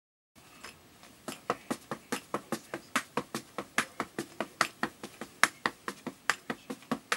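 Tap shoes' metal taps striking the floor in a tap spring step, sharp clicks in even groups of three, a group a little more often than once a second, starting about a second in.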